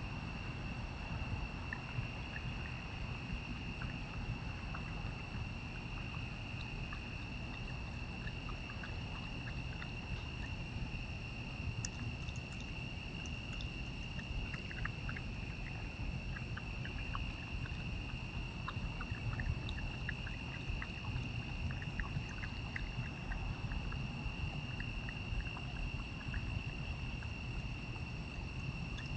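A steady insect chorus: a continuous high trill with fainter higher tones, over a constant low rumble. Faint scattered clicks come through in the middle.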